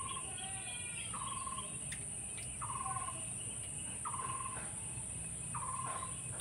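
A bird calling over and over: a short, clear note that rises quickly at its start and then holds, repeated about once every second and a half, with fainter higher chirps in between.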